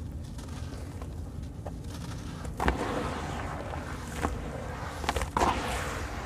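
Hands crumbling and squeezing lumps of wet white sand cement in a basin of water, making a gritty crunching and squelching. It is soft at first, then grows louder about two and a half seconds in with a sharp crack, and a few more sharp crackles follow.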